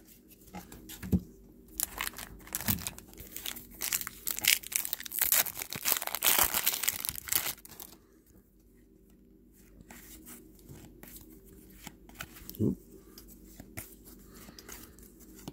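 Foil wrapper of a trading card pack being torn open and crinkled: a dense crackling for several seconds, then quieter soft rustles and clicks of cards being handled.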